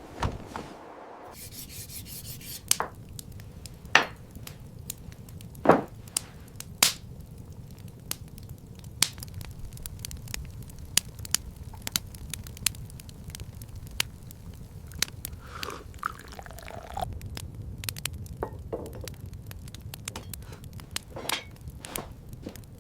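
Irregular sharp clicks and cracks over a low, steady rumble, with a few louder snaps in the first seven seconds.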